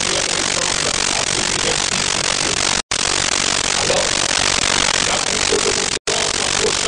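Loud, steady hiss of static noise with no speech, cut off completely for an instant twice, about three seconds apart, like drop-outs in the recording.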